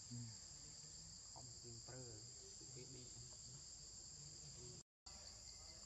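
Forest insects droning steadily in two high-pitched bands, faint against the quiet; the sound cuts out completely for a moment about five seconds in.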